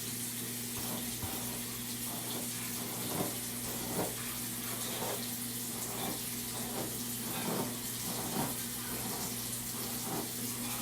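Steady hiss of running or falling water with a low electrical hum underneath, and faint soft strokes about once a second.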